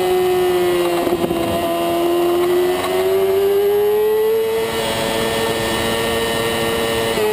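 Supersport race motorcycle engine running hard high in the rev range, around 12,000 to 14,000 rpm, in third gear through a corner: the pitch sags slightly, climbs again about three seconds in and then holds steady, with a brief catch near the end. Wind rush over the fairing runs underneath.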